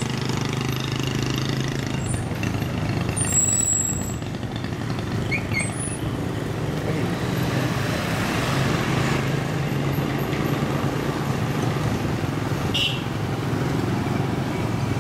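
Town street traffic: motor scooters running and passing, with a low steady engine hum that swells and fades twice.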